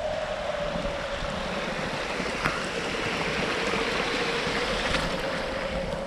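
Wind in a snowstorm blowing steadily, with a howling tone that wavers slightly in pitch over a rushing hiss, and a low rumble of wind on the microphone.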